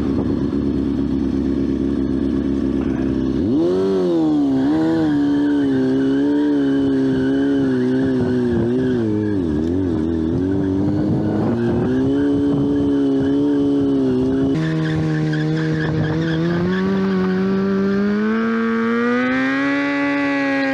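Motorcycle engine revved hard and held at high revs during a burnout, its pitch wavering up and down as the throttle is worked against the brake. The sound jumps abruptly to a new pitch twice, about three and a half and fourteen and a half seconds in.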